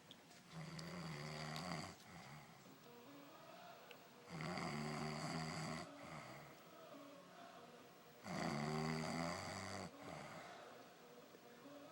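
A man snoring in a heavy, drink-induced sleep: three long snores, about four seconds apart.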